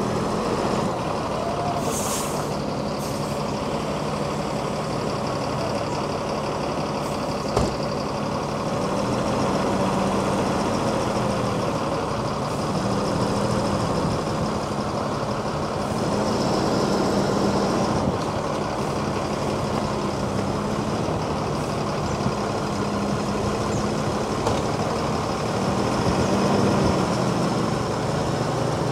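Diesel engine of a large intercity coach running as the bus pulls slowly away, its note rising and falling a few times. A short hiss about two seconds in.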